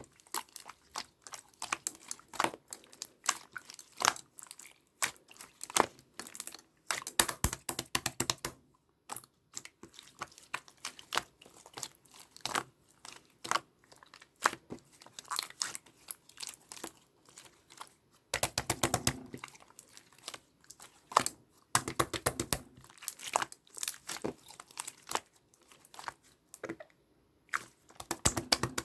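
Bursts of dense crinkling and rapid clicking from something being handled and crumpled by hand, with short pauses between the bursts.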